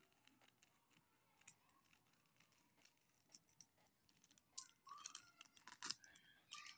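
Thin plastic food packet crinkling and rustling as it is handled and pulled open, with scattered faint clicks at first and louder crisp crackling from about four and a half seconds in.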